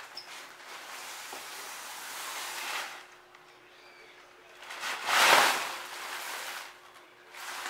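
Large plastic bag rustling as it is carried in, with a loud crinkle about five seconds in as it is set down.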